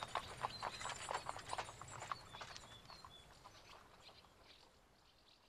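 Horse's hooves clip-clopping on a hard surface, about three or four knocks a second, fading steadily away. A few short high chirps sound over them.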